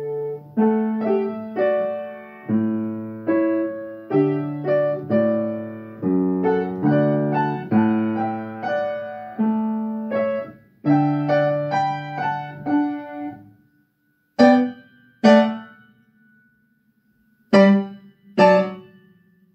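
Upright piano playing a slow classical piece: sustained chords under a melody, then, after about thirteen seconds, short loud detached chords in two pairs separated by silent rests.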